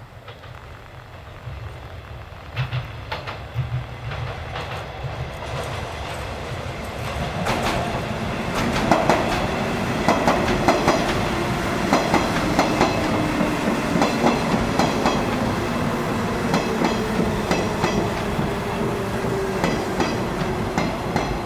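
Nishitetsu 8000 series electric train approaching and passing, its wheels clacking in a rhythm over the rail joints. The clacking grows steadily louder and is loudest from about eight seconds in.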